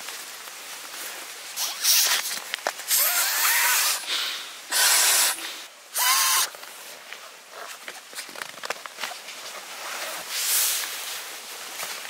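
Inflatable sleeping pad being blown up by mouth through its valve: three loud, breathy rushes of air, each under a second, between stretches of rustling nylon fabric.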